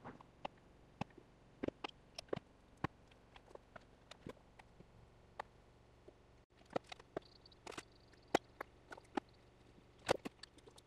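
Scattered light clicks and small knocks from small metal and plastic parts and hose fittings being handled, irregular and sparse.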